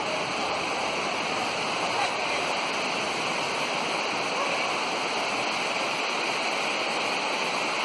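Steady rushing of flowing water from a stream running through a cave.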